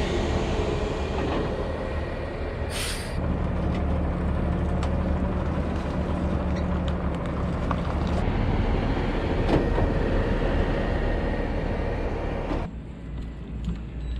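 Heavy truck on the move: steady low engine drone under road rumble, with a short air hiss about three seconds in. The sound drops suddenly to a quieter background near the end.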